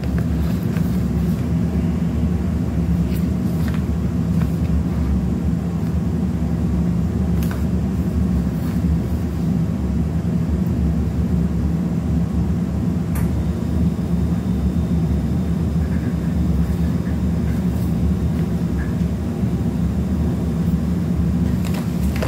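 Steady low background rumble, with a few faint clicks as a small cardboard product box is handled.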